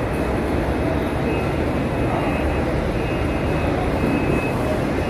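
Steady, dense murmur of a large crowd in the Grand Mosque of Makkah, many voices blending into an even rumble without any single voice standing out.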